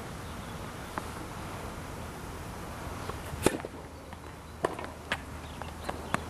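Tennis rally: sharp pops of racket strikes and ball bounces at irregular intervals, the loudest about three and a half seconds in, with a quicker run of fainter pops near the end.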